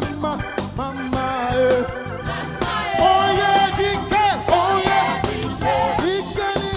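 Gospel worship song: singing over a live band with keyboard or organ, bass and drums keeping a steady beat.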